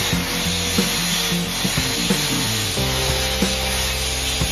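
Background music with a beat, over a steady hiss of air from a compressed-air paint spray gun spraying paint.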